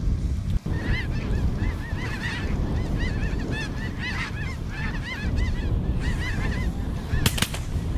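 Snow geese calling: many high, overlapping honks, several a second, over a steady low rumble. A couple of sharp shotgun cracks come near the end.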